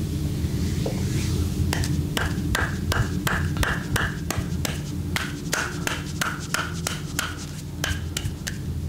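Percussive massage strokes: hands slapping rapidly on skin, about four sharp slaps a second, starting about two seconds in, over a steady low hum.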